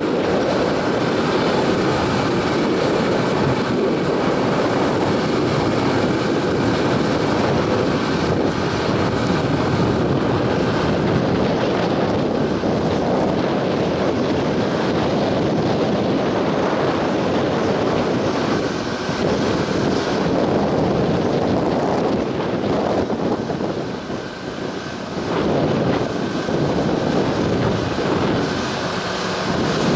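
A heavy diesel engine running steadily close by, mixed with wind buffeting the microphone.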